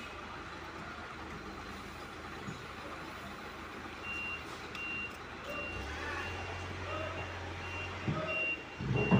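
Concrete mixer truck's reversing alarm beeping, a high steady beep about twice a second starting about four seconds in, over the truck's diesel engine running; the engine hum grows louder about six seconds in, and there is a loud low surge near the end.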